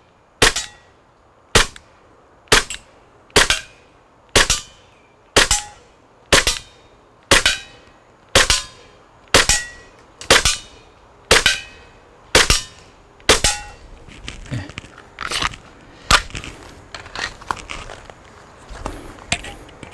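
Tokyo Marui Glock 17 Gen4 gas blowback airsoft pistol firing about fourteen shots at roughly one a second, each a sharp pop with the slide clacking back. The gas comes from a VFC Glock Gen5 magazine charged with power gas, which may shoot a little harder. After about 14 s the shots stop, and lighter clicks and knocks of handling follow.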